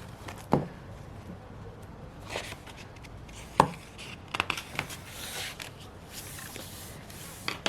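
Desk sounds of planner decorating: two sharp knocks of objects set down on the desk, light taps and clicks, and a stretch of paper and sticker-sheet rustling about five seconds in.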